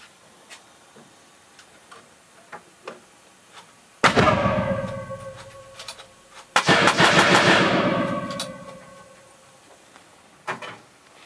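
Two sudden loud gunshot reports from rifles being proof-fired in a steel test booth, about two and a half seconds apart, each ringing on with a metallic echo for a couple of seconds. The second is longer, with a fast rattle to it. Small clicks and taps come before them.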